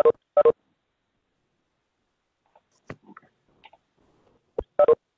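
Video-call notification tones: a quick cluster of short electronic beeps right at the start and again near the end, as participants leave the call. Faint clicks and rustles come in between.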